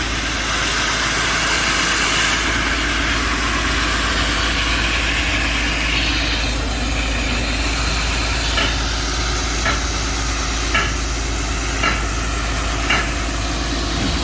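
Excavator engine running steadily under load, driving a hydraulic automatic core drill as it cores into rock, with a hissing noise over it. In the second half a short sharp tick comes about once a second.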